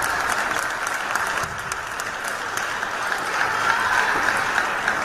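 Spectators in a sports hall applauding: a dense, even patter of clapping.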